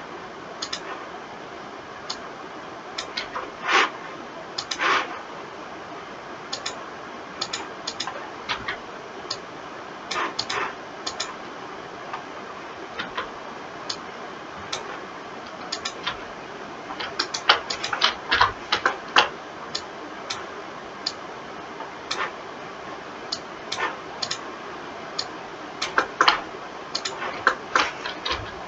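Irregular clicking of a computer mouse and keyboard, with single clicks and short quick runs of clicks, over a steady low hiss.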